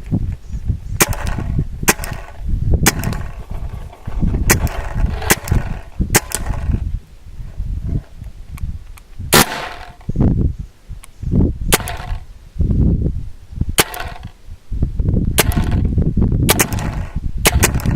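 A CO2-powered JT paintball gun firing about a dozen sharp shots, irregularly spaced and some in quick pairs. The practice paintballs are shattering inside the barrel as it fires.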